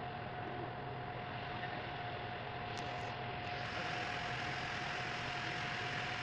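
Ferry's engine running steadily, a low hum with a constant higher tone above it, under a rush of wind and water.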